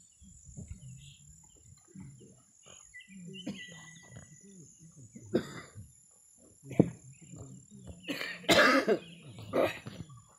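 A person coughing, loudest about eight seconds in, with a shorter cough about a second later, over a steady high-pitched insect drone and a few faint knocks and murmurs.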